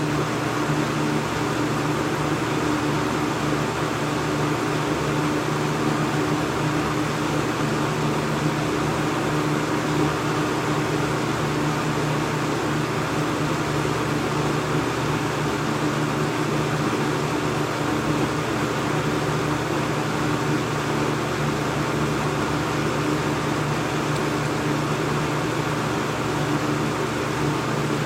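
1985 Kmart K-223 20-inch box fan running: steady rushing air with a low, even motor hum.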